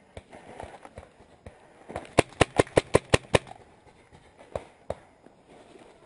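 Magfed paintball marker firing a rapid string of about seven shots in just over a second, starting about two seconds in. A few fainter scattered clicks come before and after.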